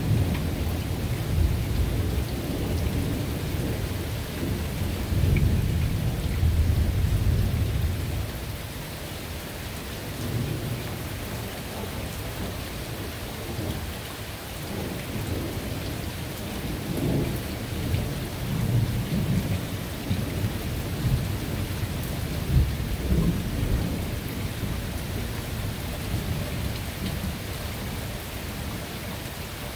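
Thunder rumbling, loud for the first eight seconds or so and then dying down, with more low rumbles later, over steady falling rain.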